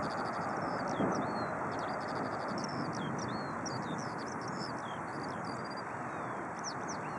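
Airbus A319 jet engines at taxi power, a steady broad rumble, with a small bird singing quick chirps, trills and falling whistles over it. A brief bump about a second in.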